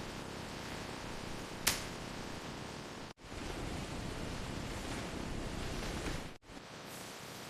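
Steady hissing noise of factory machinery, with one sharp click about two seconds in. The noise cuts out abruptly twice and comes back a little louder or quieter each time.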